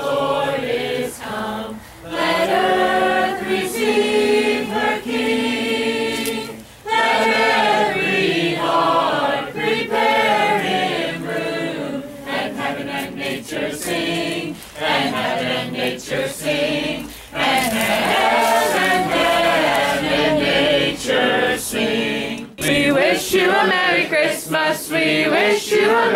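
A group of carolers singing a Christmas carol together, unaccompanied, with short breaths between phrases.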